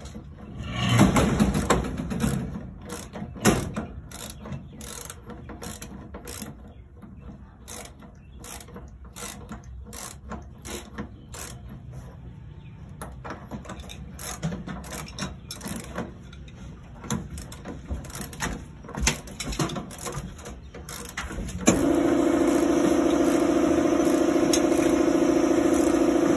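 Irregular metal clicks and knocks from hands-on work on an amusement ride seat's safety lock. About 22 seconds in, a motor switches on and runs with a steady hum.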